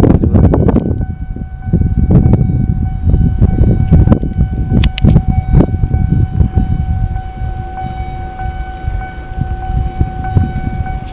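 Wind buffeting a handheld camera's microphone, with handling bumps and a few sharp clicks. A steady high tone with overtones comes in about a second in and holds, standing out more clearly in the second half.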